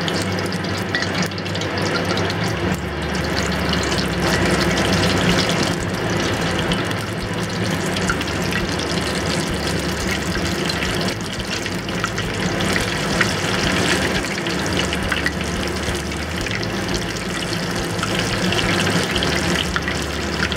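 Battered prawns deep-frying in hot peanut oil: a steady sizzle and bubbling with small crackles.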